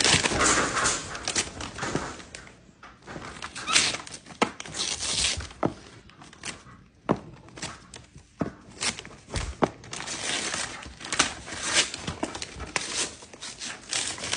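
Gift wrapping paper and tissue paper being torn and crinkled in irregular bursts as a capuchin monkey rips open a wrapped box, with occasional thumps from the box being handled.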